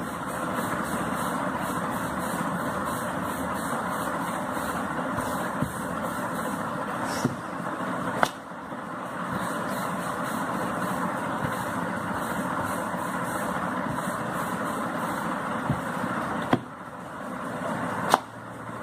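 Wooden rolling pin rolling dough out on a board, a steady rumble that breaks off twice, with a few sharp knocks of the pin against the board.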